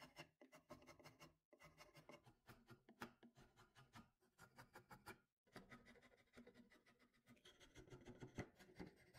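Hand file rasping across a black locust axe handle, faint short strokes in quick succession, broken twice by brief silences.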